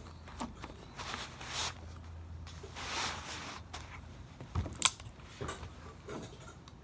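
Revolver handling: faint rustles, then one sharp metallic click about five seconds in.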